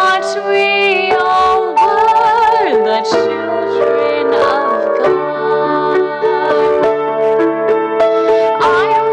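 Grand piano playing continuously, with a voice singing a wavering melody over it.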